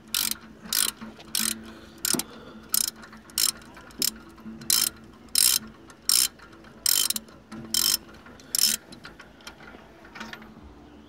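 Ratchet wrench with a spark plug socket loosening a spark plug: a short burst of pawl clicking on each back-swing of the handle, about one and a half bursts a second, stopping about nine seconds in.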